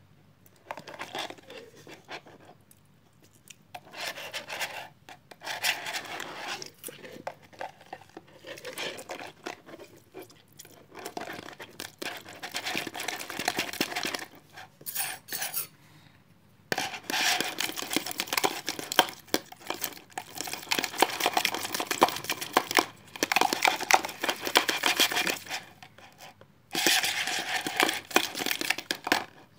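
Slime being mixed and worked: sticky crackling and clicking in stretches of several seconds, broken by short pauses.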